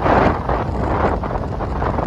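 Strong gale-force wind buffeting the microphone: a loud, gusty rumble, with a stronger gust right at the start.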